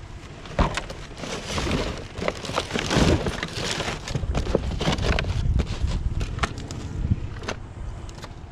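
Irregular clattering knocks and rustling of objects being handled and shifted about, dense for most of the stretch and thinning near the end.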